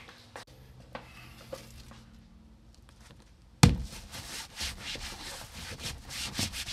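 A hook-and-loop MOLLE panel slapped onto the fabric back of a truck seat with a sharp knock about halfway in, then pressed and rubbed down by hand in a run of rough strokes. A few faint clicks of handling come before it.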